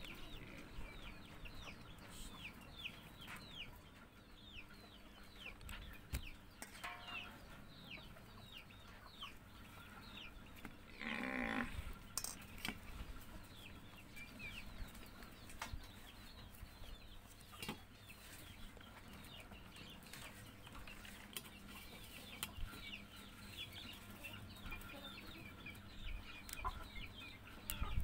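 Chickens clucking, with many short, high chirps falling in pitch running throughout and one louder call lasting about a second near the middle. Occasional light clicks from handling a banana leaf and a steel plate are heard over it.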